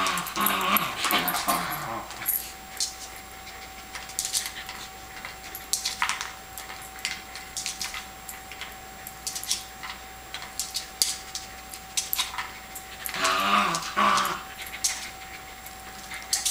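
Shetland sheepdog giving whiny grumbles of frustration twice, in the first two seconds and again about 13 seconds in. Throughout, there are short clacks and knocks from the hard plastic Kong Wobbler treat toy as she noses it around, with treats loose inside.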